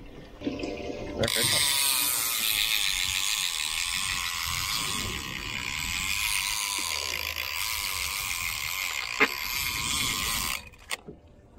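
Heavy conventional fishing reel's drag giving line as a hooked fish runs: a steady high buzz that starts about a second in and cuts off suddenly near the end, with a sharp click shortly before it stops.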